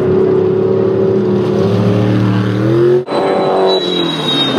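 Off-road race buggy engine running hard, its pitch climbing, then breaking off abruptly about three seconds in, after which the engine note falls steadily.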